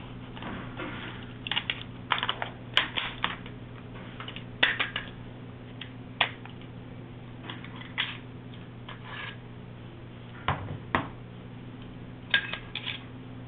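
AR-15 tactical charging handle being handled and worked: irregular sharp metallic clicks and clacks in small clusters, over a steady low hum.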